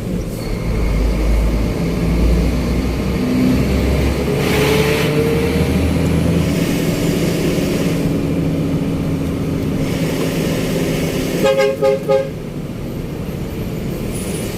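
A vehicle engine running steadily, with a horn sounding a quick series of short toots near the end.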